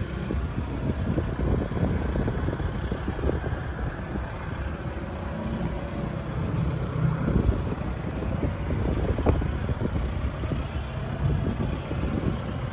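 Wind noise on the microphone outdoors, an uneven low rumble with no distinct machine running.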